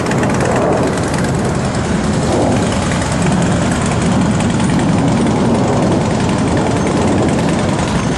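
A motor vehicle engine running steadily and loudly, with no change in pitch.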